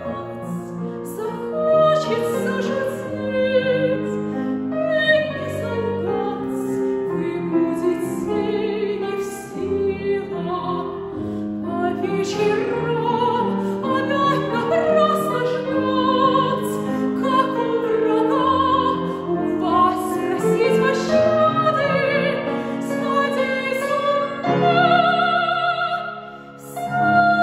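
Woman's classically trained voice singing a Russian romance with a wide vibrato, accompanied on a grand piano.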